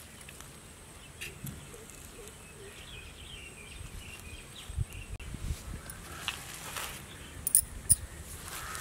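Chopped banana blossom tipped by hand into a clay pot, with soft knocks and two sharp clicks near the end, over faint outdoor animal calls.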